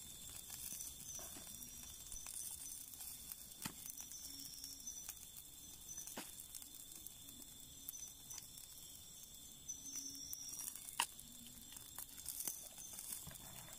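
Campfire burning low and crackling, with a few sharp pops.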